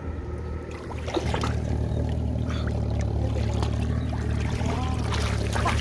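Hands splashing in shallow, muddy flooded-field water while feeling for fish, in short scattered splashes. Under them runs a steady low rumble of wind on the microphone, which grows stronger about a second in.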